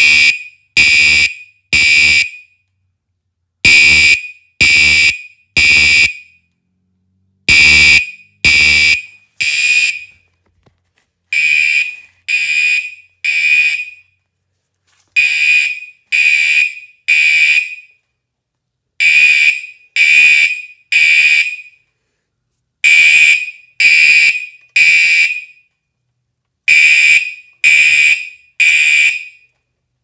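Gentex fire alarm horn strobe sounding in the temporal-3 evacuation pattern: groups of three loud half-second horn blasts, with a longer pause after each group, repeating about every four seconds.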